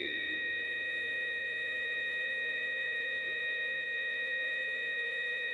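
A steady, high-pitched hum of several held tones sounding together, unchanging throughout.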